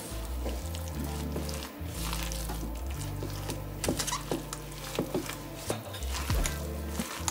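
Background music with a steady bass line, over the wet squishing and crackling of dumpling filling (chopped chives, egg and ground meat) being mixed by a gloved hand in a stainless steel bowl.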